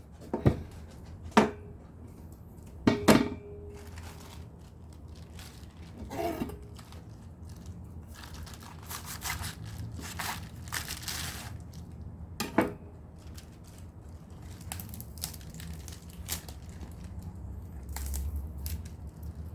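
Crisp napa cabbage being cut and torn apart, with a few sharp knocks and crackly leaf-tearing sounds.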